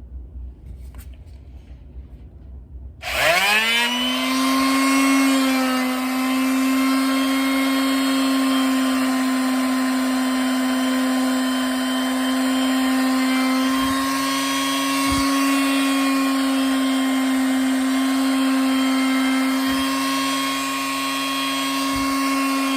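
Corded electric palm sander switched on about three seconds in, spinning up quickly to a steady high hum as it sands a scrap piece of pine.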